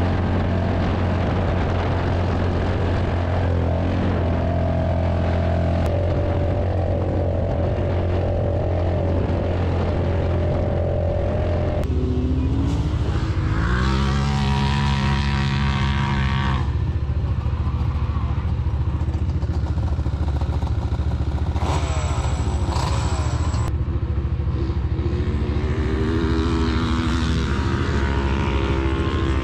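Off-road vehicle engines running, heard in several cut-together clips. The pitch rises twice as an engine revs up, once around twelve to fourteen seconds in and again near the end.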